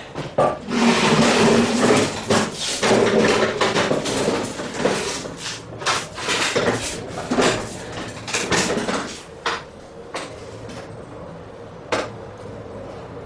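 Close scraping and rustling with many irregular knocks and clatters, as of someone handling equipment, for about the first nine seconds. It then grows quieter, with a few separate knocks and one sharp one near the end.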